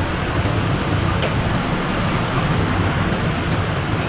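Steady rumble of street traffic, heaviest in the low end, with a faint click about a second in.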